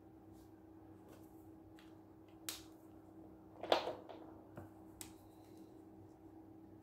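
A few sharp clicks and light knocks of felt-tip markers being handled as a pink marker is put down and a dark green one picked up; the loudest comes a little under four seconds in. A faint steady hum lies underneath.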